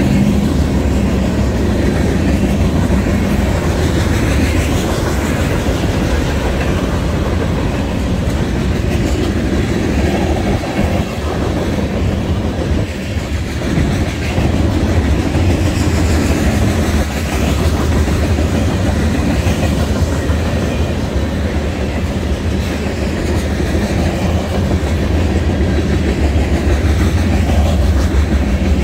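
Freight train cars, tank cars then covered hoppers, rolling steadily past: a continuous loud rumble with wheels clacking over the rail joints.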